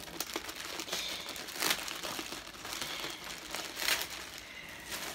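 Plastic packaging crinkling and rustling as a garment is handled and pulled from its bag, with two louder rustles a couple of seconds apart.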